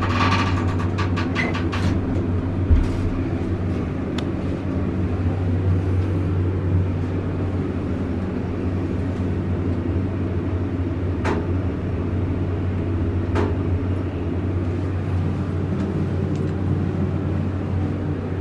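Dover hydraulic elevator, modernized by Schindler, travelling between floors with a steady low hum. A cluster of light clicks comes in the first two seconds, a single thump about three seconds in, and a few faint clicks later.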